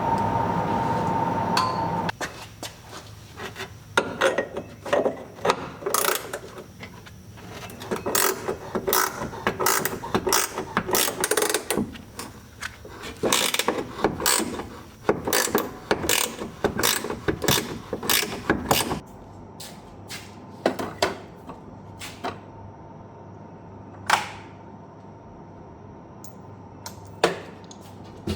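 A loud steady mechanical noise cuts off about two seconds in. It is followed by a long run of irregular metallic clicks and clanks from hand tools, which thin out to a few scattered clicks near the end.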